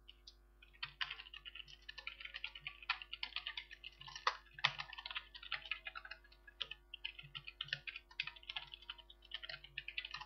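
Typing on a computer keyboard: a fast, uneven run of keystrokes with short pauses, as a program is typed into a text editor.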